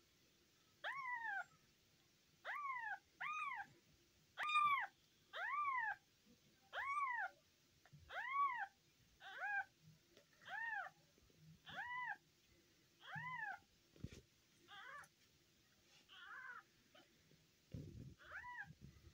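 Newborn kitten, a day old, mewing over and over: about fourteen short, high mews, each rising and then falling in pitch, roughly one a second, some of them fainter toward the end. Soft low rustling near the end.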